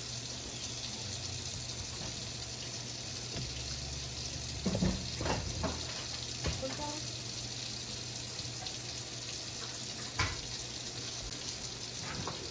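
Kitchen tap running steadily into a sink during washing up, with a few clinks and knocks of dishes and utensils handled in the sink.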